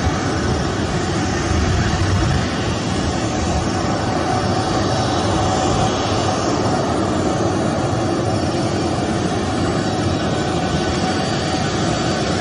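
Boeing 737 airliner's twin jet engines running at low taxi power as it rolls slowly past, a steady noise.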